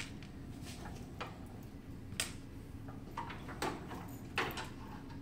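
Scattered clicks and light knocks of a black clamp being handled and fitted onto a resuscitator's upright frame, about seven irregular clicks, the sharpest about two seconds in and near the end, over a steady low hum.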